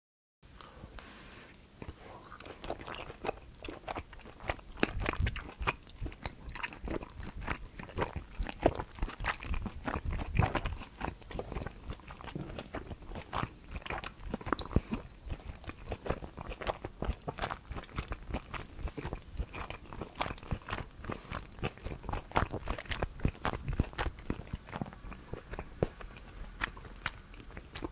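Close-miked eating: bites and chewing of pan-fried dumplings coated in a sticky sweet-spicy glaze, with irregular crisp crunching, several crackles a second.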